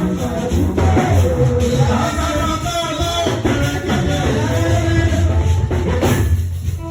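Choir singing a Yoruba gospel praise song over drums and bass, the voices dropping out briefly near the end.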